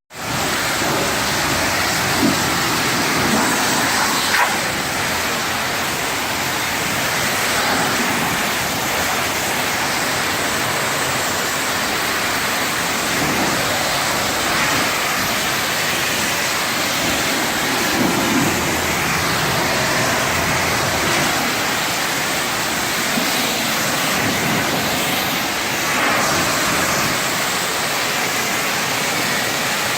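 High-pressure car wash spray wand rinsing a truck: a loud, steady hiss of water spray that swells and eases a little as the jet moves over the truck.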